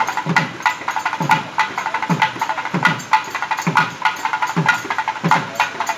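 Festival procession drums beaten in a steady rhythm: deep strokes that drop in pitch about once every second, with quick sharp strokes between them.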